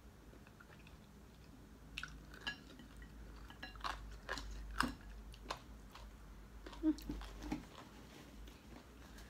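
A person chewing food, with a run of short sharp clicks and smacks from about two seconds in until nearly eight seconds in.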